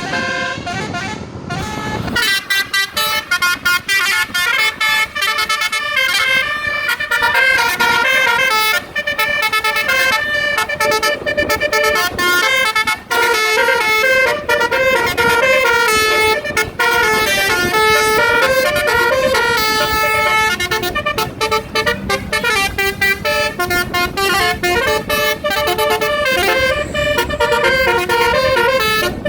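Basuri telolet bus horn playing a long run of melodies, note after note with hardly a pause, starting about two seconds in.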